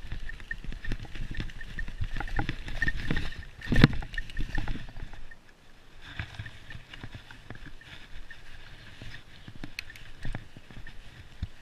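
Mountain bike rolling fast over a leaf-covered dirt trail: tyres crunching through leaves and the bike rattling over bumps, with one loud knock about four seconds in. From about five seconds in it goes quieter, with scattered light clicks and rattles.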